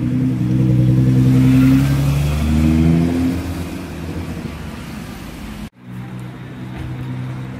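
Nissan GT-R's twin-turbo V6 with a tuned exhaust accelerating away, its exhaust note loud for the first few seconds and then fading as it drives off. A sudden break about three-quarters of the way through is followed by a steadier engine sound.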